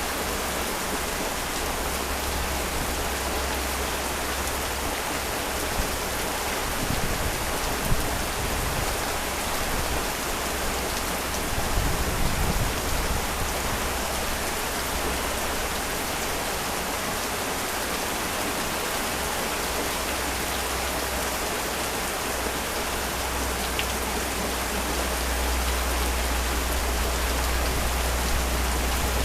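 Heavy rain falling steadily as a dense, even hiss, with brief low rumbles about seven and twelve seconds in.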